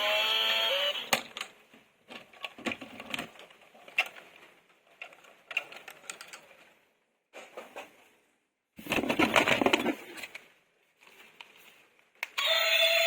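Plastic toys being handled, with irregular clicks and rattles and a louder burst of rattling about nine seconds in. Background music plays briefly at the start and comes back near the end.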